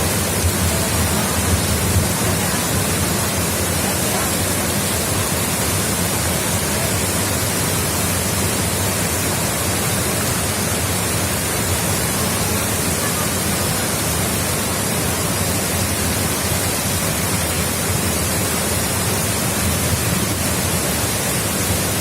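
A waterfall in flood, overflowing its usual course: a loud, steady rush of falling water.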